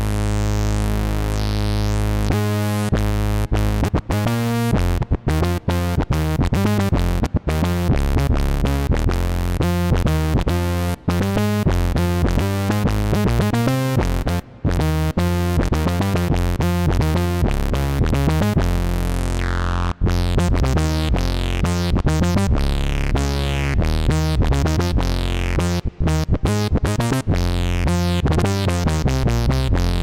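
Moog Subsequent 25 analog synthesizer played on its keyboard with a custom patch: a run of quick notes over a steady low note, broken by brief gaps. In the second half the filter sweeps up and down.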